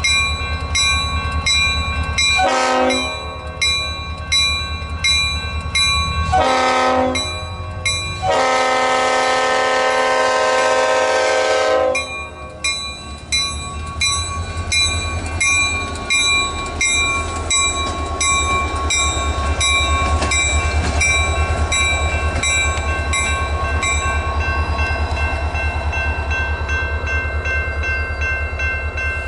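Diesel freight locomotives sounding their horn for a grade crossing: two short blasts, then a long one held about four seconds. The crossing's warning bell dings steadily throughout, over the rumble of the diesel engines and the passing train, and the bell fades near the end.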